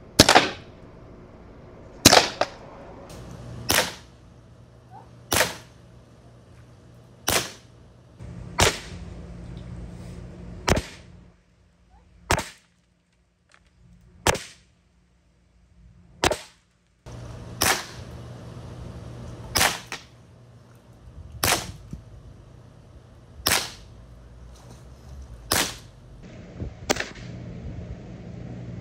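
Evanix Viper .30 calibre PCP air pistol firing shot after shot: about fifteen sharp reports, roughly one every two seconds.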